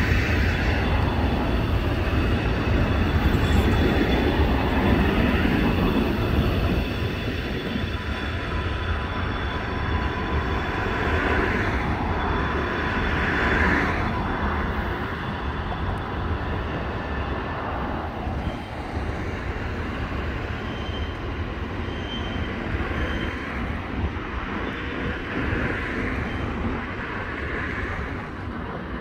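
Intermodal freight train rolling past: a steady rumble of wheels on rail that eases after about seven seconds.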